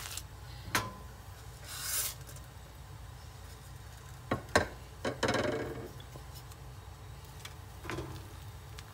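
Dry noodles going into a metal pot of boiling water and being stirred with a wooden spoon: several sharp knocks of the spoon against the pot and a couple of short swishing splashes, over a steady low hum.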